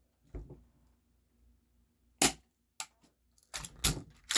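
Game Face GFM311 full-metal spring-powered airsoft pistol: one sharp shot a little over two seconds in, surrounded by lighter mechanical clicks from the slide being cocked.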